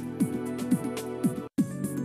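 Background music with a steady beat, cutting out for an instant about one and a half seconds in.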